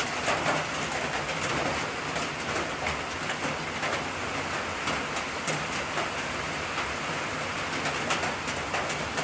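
Steady rain falling on a lean-to roof and wet leaf litter, with scattered drips.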